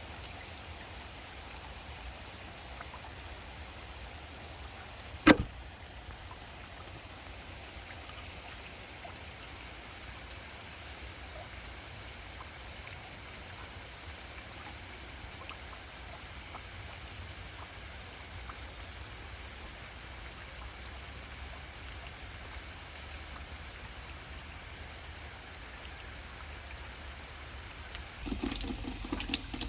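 Steady rain falling, an even hiss of drops. A single sharp knock about five seconds in, and near the end a louder rush of running, splashing water sets in.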